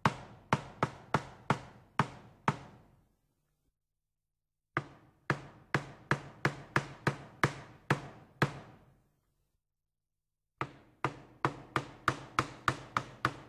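Sharp knocking strikes, each with a short low ring that dies away, in three quick runs of about eight to ten strikes with short silences between them.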